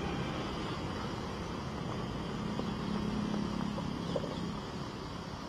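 Traffic on a rain-soaked road: a steady hiss of rain and tyres on wet asphalt as a car passes. A motorcycle engine hums past, loudest about three seconds in.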